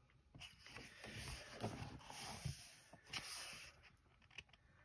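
Faint rustle of paper pages being turned in a coloring book, in three soft swishes.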